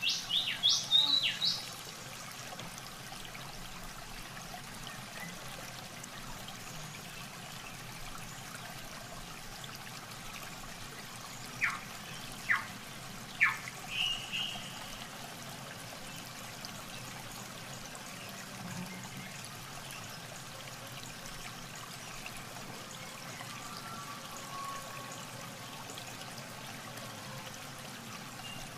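Steady trickling and splashing of water as a plastic bucket bails muddy water out of a shallow pool. A few short, high chirps cut through, a cluster in the first second or so and three sharp ones about halfway through.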